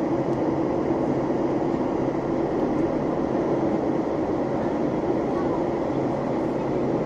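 Steady cabin noise of a Boeing 737 MAX airliner in a descending turn: an even engine and airflow rumble at a constant level, with a faint low hum.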